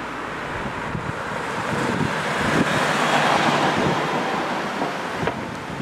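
Street traffic: a car passing close by, its road noise swelling to a peak about halfway through and then fading, with wind buffeting the microphone.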